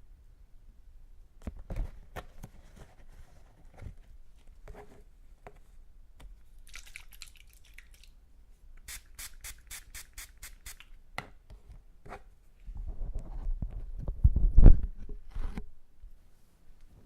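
Close-miked ear-cleaning tools working in a silicone ear model: scattered clicks and scrapes, a short hiss about seven seconds in, and a quick run of about nine sharp ticks. Louder rubbing follows near the end.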